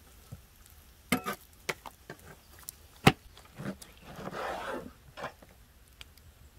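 Heavy cleaver chopping raw liver on a wooden cutting board: a handful of sharp knocks, the loudest about three seconds in, followed by a brief rustling scrape.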